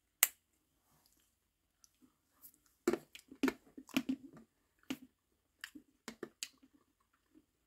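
A Necco candy wafer snapped in half with one sharp crack, then the hard, chalky wafer crunched between teeth in a run of short, irregular crunches.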